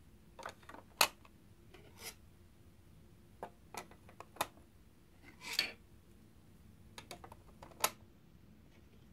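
Plastic LEGO plates clicking and knocking together as they are set down and fitted into place by hand: a scattering of separate sharp clicks, the loudest about a second in, with a short rustling rub around the middle.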